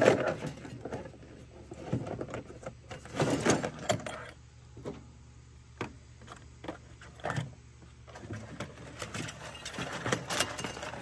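Handling noise: irregular clicks, knocks and rustles as a black plastic tool box is set down and handled on a wooden trailer bed, with orange trimmer line being pulled out near the end.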